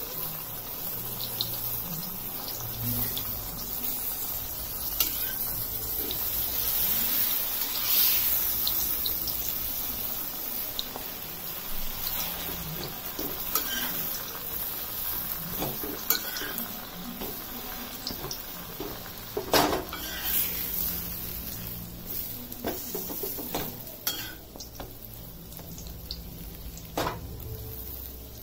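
Butter sizzling on a hot tawa as burger buns toast, with scattered clacks and scrapes of hands and a metal spatula against the griddle.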